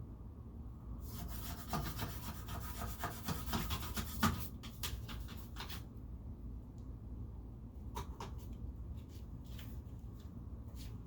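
Hands working plumbing parts: rubbing and scraping with a dense run of small clicks and knocks for several seconds, then a few scattered clicks.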